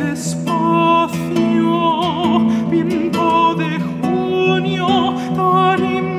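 A countertenor singing long held notes with vibrato, accompanied by a plucked classical guitar.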